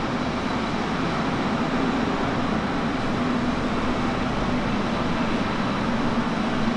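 Steady loud machinery noise in a powder-coating plant: an even, unbroken rushing with a low hum underneath.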